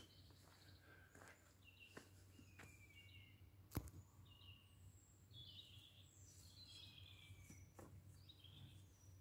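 Faint birdsong: scattered short chirps and whistles from small birds, with one sharp click a little under four seconds in and a faint steady low hum underneath.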